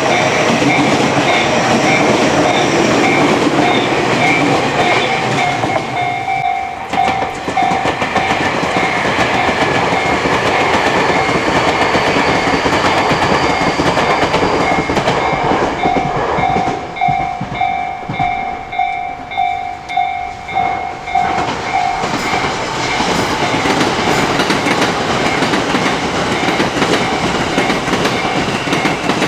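Japanese railway level-crossing bell ringing over and over with its steady "kan-kan" clang while an electric commuter train runs through the crossing, wheels clattering on the rail joints.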